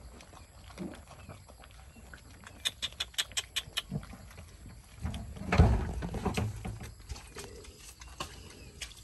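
Several puppies eating together from a bowl: snuffling and scrabbling, a quick run of sharp clicks about a third of the way in, and a louder thump with scuffling about halfway through.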